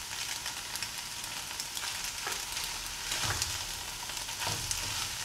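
Penne pasta and vegetables sizzling in a nonstick saucepan while being stirred with a plastic spatula: a steady frying hiss with light crackles and a few scraping strokes of the spatula, the loudest about three seconds in.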